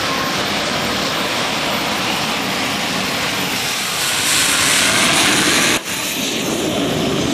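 Rolls-Royce helicopter turbine engine on a drag quad running flat out, a loud jet-like rush that swells as the quad goes by about four seconds in. The sound drops out for an instant just before six seconds.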